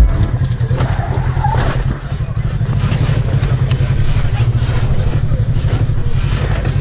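Polaris RZR side-by-side UTV engine running steadily as it drives over rock, a loud, steady low drone.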